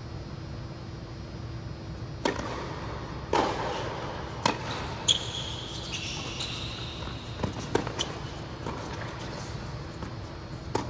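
Tennis balls being struck by rackets and bouncing on an indoor hard court, a string of sharp pops at irregular intervals, each echoing in the large hall. A high squeak comes in the middle.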